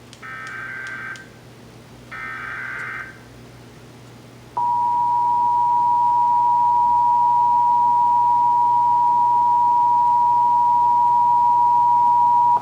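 Emergency Alert System test: two one-second bursts of SAME header data, with a short gap between them. About four and a half seconds in, the EAS two-tone attention signal (853 and 960 Hz together) starts. It holds steady and loud for about eight seconds, then cuts off abruptly.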